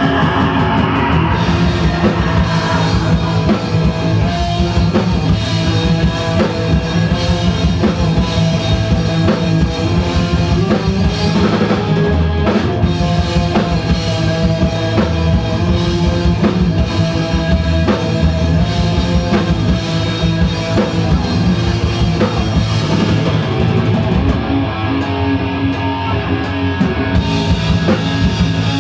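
A live thrash metal band playing loudly, with a fast-hit drum kit and electric guitars, recorded on a phone in the club.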